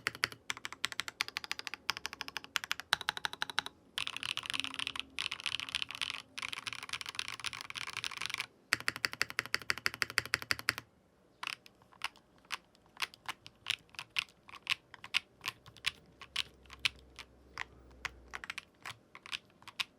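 Typing sound test on a freshly built Meletrix ZOOM75 TIGA custom mechanical keyboard, with cork and foam sandwich dampening and Cherry-profile keycaps. Fast continuous typing for about eleven seconds, with short pauses, then slower, separate key presses.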